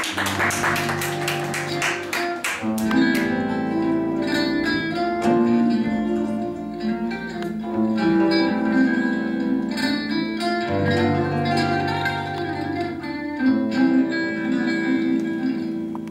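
Live acoustic band playing in gypsy-rumba style: acoustic guitars strumming quickly, with double bass and held melody notes above.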